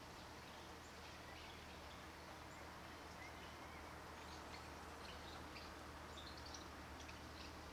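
Faint outdoor ambience: a steady low hiss and hum with scattered faint, high bird chirps, more of them in the second half.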